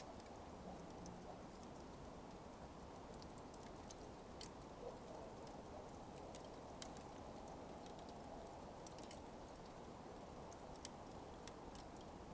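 Smouldering coals crackling faintly: small sharp ticks and pops at irregular intervals over a steady low hiss.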